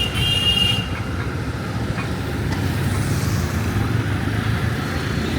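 Urban street traffic: a steady rumble of passing vehicle engines and tyres, with a brief high-pitched horn in the first second.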